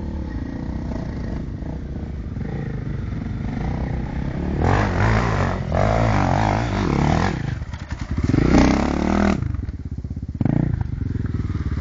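Enduro motorcycle engine running, then revving hard from about five seconds in, its pitch climbing and falling in two surges. It drops away briefly near the ten-second mark and then runs steadily again.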